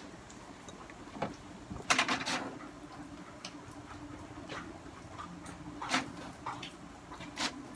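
HP DeskJet GT5810 inkjet printer running a head-cleaning cycle, its pump drawing ink from the tanks to fill the cartridge: a faint steady motor hum that starts about two seconds in, with a cluster of clicks around the same moment and a few single clicks later.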